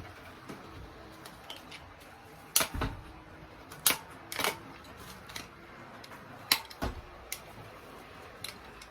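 Handling noises from unpacking a bike repair stand: about six scattered sharp clicks and knocks, two of them with a low thud, as packaging and stand parts are handled.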